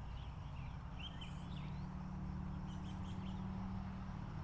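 Birds chirping outdoors: short, scattered chirps and quick whistled glides, over a low steady hum.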